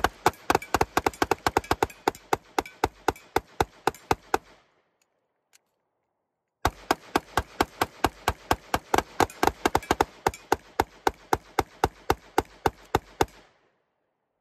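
Two pistols fired at the same time in rapid strings, several shots a second with the reports overlapping. The first string stops about four and a half seconds in, and after a pause of about two seconds a second string runs until near the end.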